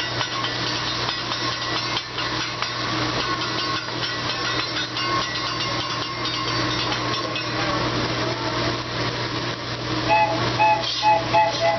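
Hibachi griddle sizzling with a steady hiss. About ten seconds in, a wooden train whistle is blown in several short two-tone toots.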